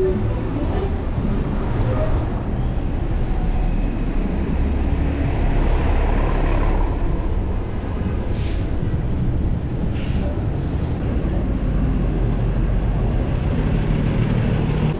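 Heavy city traffic heard from a bicycle riding among it on wet streets: a steady low rumble of engines and tyres, with two short hisses about eight and ten seconds in as the bike passes a bus.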